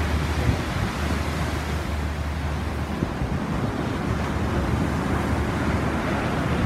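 Ocean surf breaking steadily on the beach, with wind buffeting the microphone.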